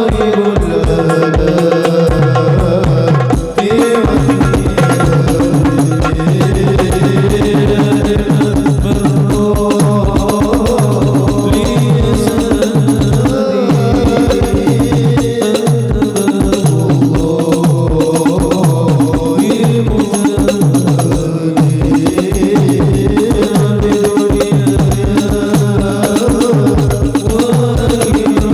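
Devotional sholawat music: hand drums play a fast, dense rhythm under a sustained melodic line.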